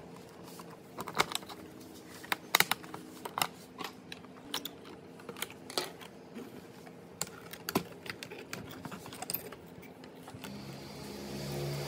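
Irregular sharp plastic clicks and clacks, loudest a second or two in, as the plastic housing of an old Panasonic M7 VHS camcorder is pulled apart and its parts handled.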